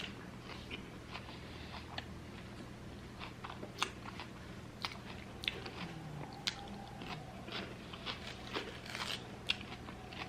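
A person chewing food close to the microphone, with many small, sharp crunches and mouth clicks at an irregular pace.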